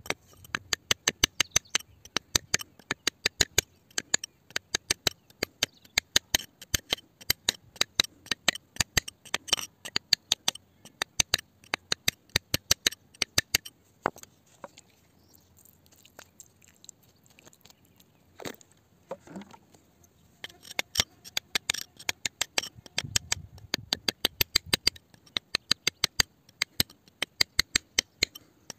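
A pointed metal pick tapping quickly against wet rock around an embedded stone, several sharp clicks a second. About halfway through the tapping stops for a few seconds, with only a few scattered taps, then starts again.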